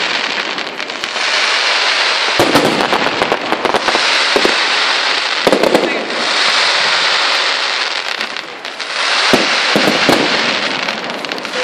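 Fireworks display: shells bursting with sharp bangs in clusters about two to four seconds in, again around five and a half seconds, and about nine to ten seconds in, over a dense continuous crackle that swells and fades.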